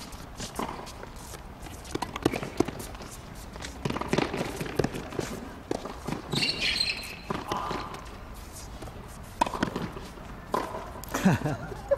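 Tennis rally on a hard court: irregular sharp knocks of racket strikes and ball bounces, with players' footsteps.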